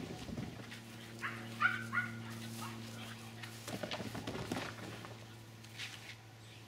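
Staffordshire bull terrier barking: a few short, high barks about a second and a half in and a couple more around four seconds, over a steady low hum.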